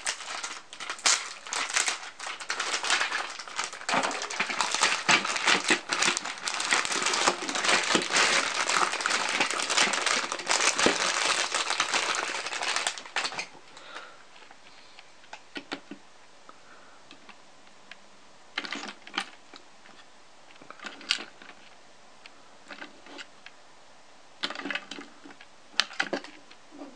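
Plastic handling noise close to the microphone: dense crackling and clicking for the first half, then only scattered short clicks and knocks as the plastic Plarail toy train is handled.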